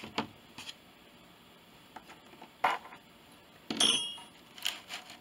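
Hands working a crochet-covered cardboard wreath form: a handful of short rubs and taps as yarn tails are tucked into the stitches, the loudest about three to four seconds in.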